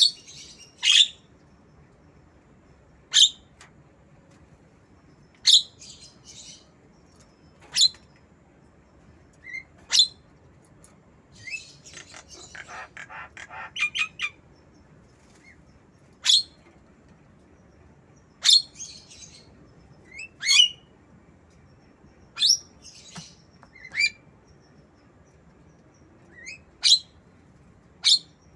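Javan myna giving short, sharp, shrill calls that mimic a lovebird, one every two seconds or so, with a rapid chattering run of notes around the middle.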